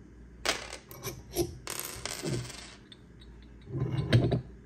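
Steel shafts of a bearing separator and puller set clinking and scraping against the separator as they are fitted and threaded in by hand, with a rasping scrape of about a second near the middle and a cluster of knocks near the end.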